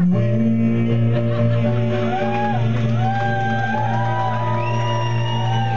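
Music begins abruptly: a steady held low chord, with a high melody of gliding, arching notes over it from about two seconds in.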